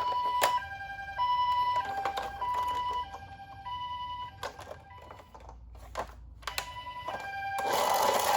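Toy ambulance minicar's electronic siren sounding the Japanese two-tone 'pee-po' pattern: a higher and a lower note alternating about every half second. It fades in the middle, with a few clicks, and a rushing noise builds up near the end.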